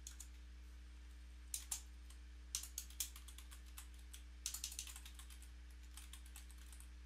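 Typing on a computer keyboard: a couple of keystrokes, then short runs of keys, with a quicker flurry in the second half as a word is typed out. A faint steady electrical hum lies underneath.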